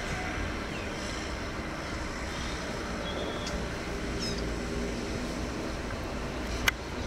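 Steady low background rumble, with a few faint, short, high bird chirps in the middle and one sharp click near the end.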